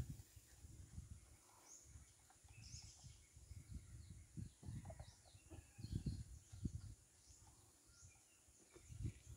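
Near silence: faint, scattered high bird chirps over a few soft low thumps.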